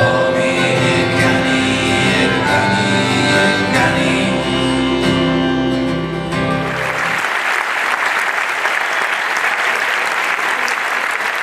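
Small live band of accordion, clarinet and acoustic guitar playing the closing bars of a song, ending about seven seconds in, then the theatre audience applauding.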